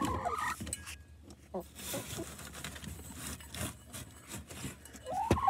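Hens shifting and rustling in a crowded wooden nesting box, their feathers rubbing against each other and the boards, with small scratching clicks. Near the end a chicken starts a loud, rising call.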